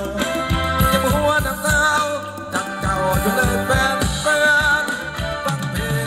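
Thai ramwong dance music from a live band: a quick, steady drum beat and bass under a wavering melody line.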